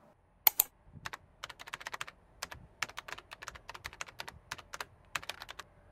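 Computer keyboard typing sound effect: a rapid, irregular run of key clicks starting about half a second in and stopping near the end, the first keystroke the loudest.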